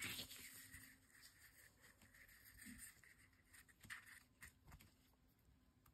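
Near silence with faint rustles and soft ticks of felt being handled and pressed into place by hand, the strongest right at the start.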